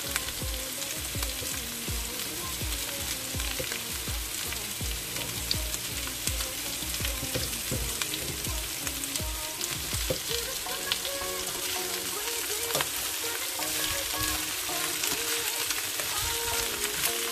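Cut squash, eggplant and okra sizzling as they sauté in oil in a metal pan, with a spatula stirring them near the end.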